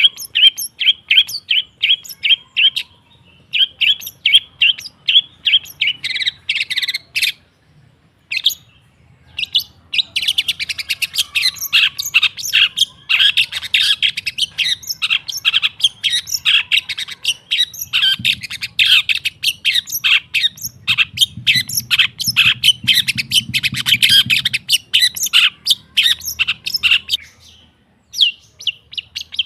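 Long-tailed shrike (cendet) singing in long runs of rapid, sharp, repeated chattering notes, broken by a few short pauses.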